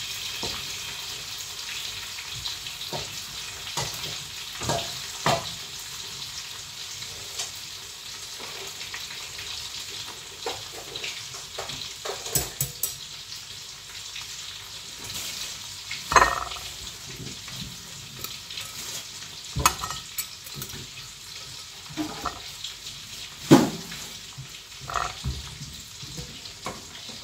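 Chicken frying in hot oil in a wok, a steady sizzle. Over it come several sharp metal clacks as a metal spatula scrapes the wok and taps the wire strainer while fried pieces are lifted out.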